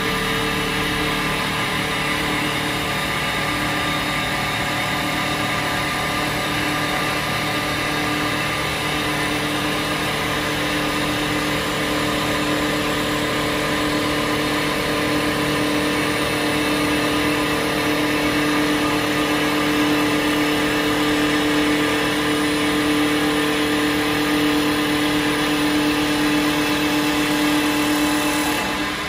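CNC wood lathe turning a wooden column: the spindle and drives make a steady whine of two main tones over the hiss of the cutter shaving the spinning wood. The whine stops shortly before the end.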